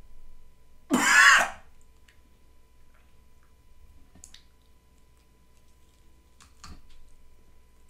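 A person makes one short, harsh throat-clearing noise about a second in, followed by a few faint clicks.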